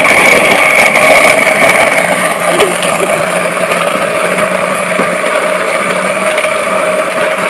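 Electric countertop blender's motor running at speed, blending mango, fresh milk and ice into a shake: a loud, steady whir whose higher whine eases after about two seconds, leaving a lower hum.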